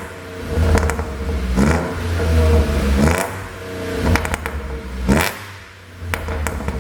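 Audi A7 50 TFSI's supercharged 3.0-litre V6 free-revved in short blips, several times over, with sharp exhaust pops and crackles as the revs fall. The pops come from a tuned 'pop and bang' engine map.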